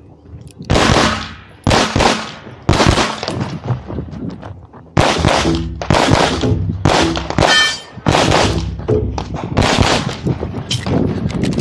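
A rapid string of 9mm pistol shots from a CZ Shadow 2, about twenty in all, with a short pause about four seconds in. About seven and a half seconds in, a steel target rings after a hit.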